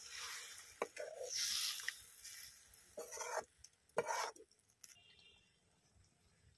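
Steel ladle stirring a watery curry in a metal kadai, scraping along the pan and knocking against its side a few times; the stirring stops about two-thirds of the way through.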